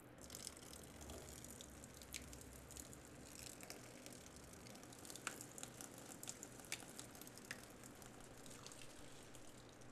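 Faint liquid trickling and dripping: blood-red liquid spilling out of a small wooden box and running down a cloth-covered table, with many small drips scattered through the steady trickle. It starts suddenly and stops just as suddenly near the end.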